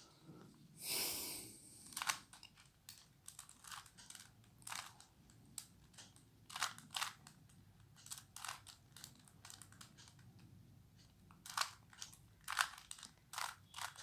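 Rubik's cube being turned by hand: an irregular string of small plastic clicks and clacks as its layers rotate, with a short rustling hiss about a second in.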